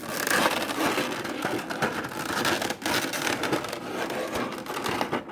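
Tape being scraped and picked off a cardboard figure box by hand: a continuous scratchy scraping of tape and cardboard, broken by many small clicks.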